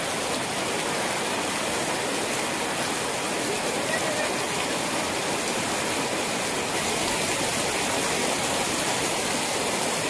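Heavy rain pouring down onto waterlogged grass, soil and trees as a dense, steady hiss, getting slightly louder about two-thirds of the way through.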